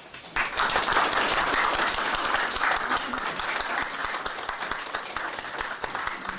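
An audience applauding, starting a moment in, strongest early on and slowly dying down.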